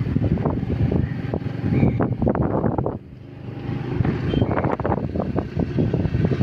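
Wind buffeting the microphone of a phone carried on a moving vehicle, a rough rumbling flutter, with the vehicle's running noise underneath. The buffeting drops away briefly about halfway through and then returns.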